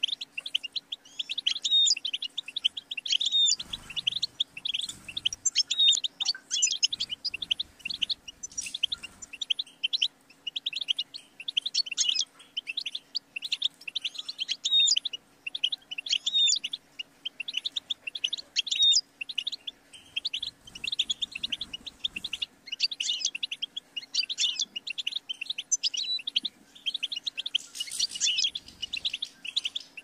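A European goldfinch singing a long, continuous song of fast twittering chirps and trills, with a faint steady hum underneath.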